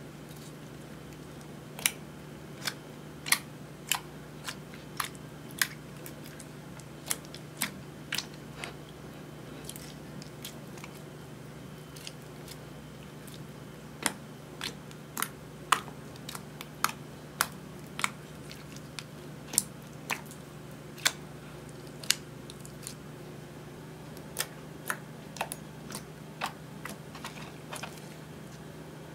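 Clear slime being squeezed and folded by hand, giving sharp pops and clicks at irregular intervals, with a steady low hum underneath.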